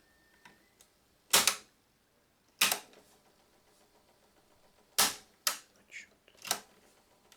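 Cassette transport mechanism of a Sony LBT-D107 hi-fi giving sharp, irregular clacks: two single ones, then a quick cluster of four. This is the knock in the tape mechanism, which the owner puts down to the take-up reel drive.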